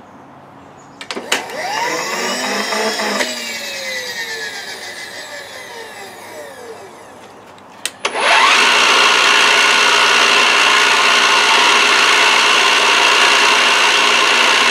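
Milling machine spindle whining, its pitch rising and then falling away over a few seconds. About eight seconds in, the end mill starts cutting the edge of a copper plate: a loud, steady whine with a hiss that runs on.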